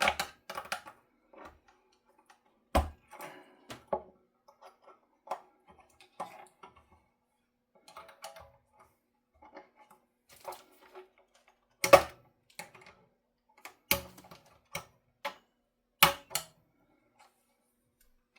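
Scattered clicks and knocks of small guitar hardware and tools being handled during tremolo fitting, with sharper knocks about 3, 12, 14 and 16 seconds in.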